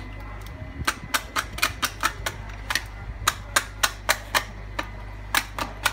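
A knife blade cutting through a horseshoe crab's hard shell, giving a string of sharp, crisp clicks at an uneven three or four a second, starting about a second in.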